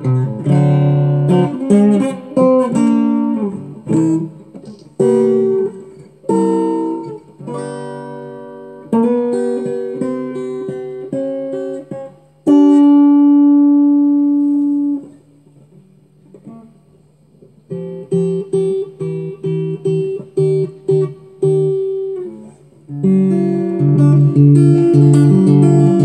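Taylor T5z hybrid electric-acoustic guitar played as a solo improvisation, with plucked single notes and short chords. About halfway through, a chord rings out and fades into a brief lull. Then quick repeated notes pick up again and fill out toward the end.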